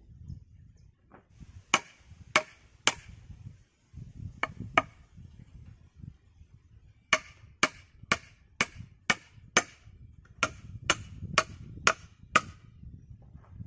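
Hatchet chopping into a log: three sharp strikes, a pause, two more, then a quick run of about a dozen blows at roughly two a second.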